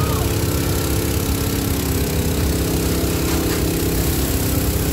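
An engine running steadily with an even drone, over a constant hiss and crackle from the burning bus and the hose spray.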